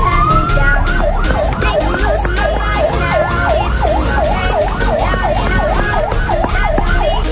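Electronic vehicle siren: a wail rising over the first second, then switching to a fast yelp sweeping up and down about three times a second, over a steady low rumble; it cuts off suddenly at the end.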